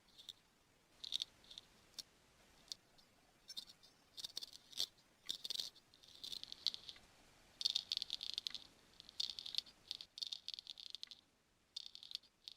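Dubbed-on sound effect of a Western straight razor shaving hair: a series of short, dry scraping strokes, starting and stopping irregularly, some in quick clusters, matched to the strokes of ear-hair shaving.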